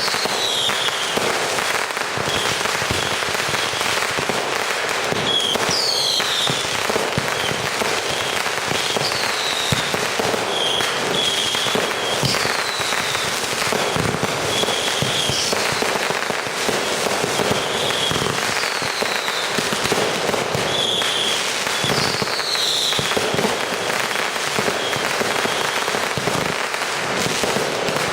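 Fireworks finale: a continuous barrage of bangs and crackle, with short falling whistles recurring every second or two.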